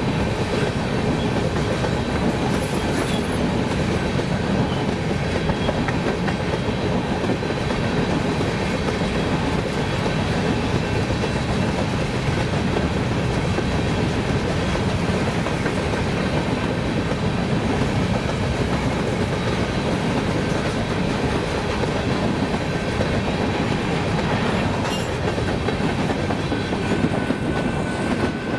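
Freight train of covered hopper cars rolling steadily past, wheels clattering over the rail joints, with a railroad grade-crossing bell ringing under the train noise. Near the end the last car passes and the rolling noise eases, leaving the crossing bell more audible.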